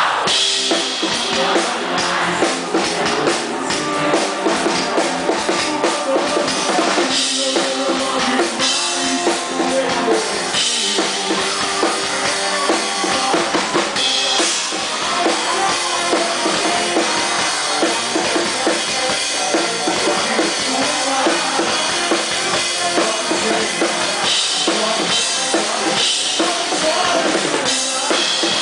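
Live pop-rock band playing on stage, with the drum kit's bass drum and snare keeping a steady beat under the other instruments.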